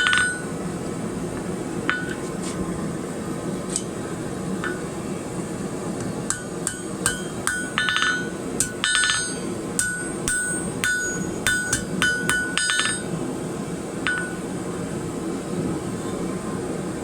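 Hammer tapping a small steel piece on the anvil, each tap ringing with a metallic ring: a few spaced taps, then a quick run of taps in the middle, typical of tapping a piece straight. A steady low hum runs underneath.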